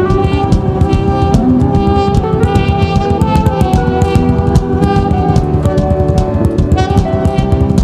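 Instrumental worship music: held melodic notes over a busy, steady drum beat.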